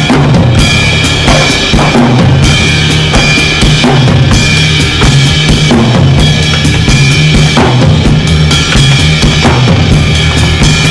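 Soundtrack music with a heavy drum-kit beat and deep bass.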